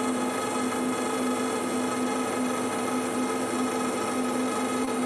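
Steady hum with a clear tone and its overtones over a noisy rush from a car-amplifier test bench: two amplifiers driven at full output into load banks, pulling over 500 amps through the power wire.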